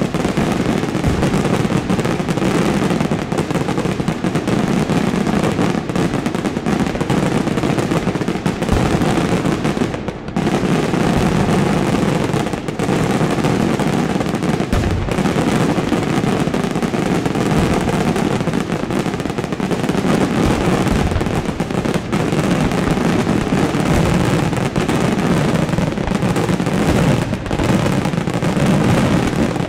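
Daytime aerial fireworks barrage: rapid, overlapping bangs of shells bursting overhead, running together into a continuous crackling din, with a brief lull about ten seconds in.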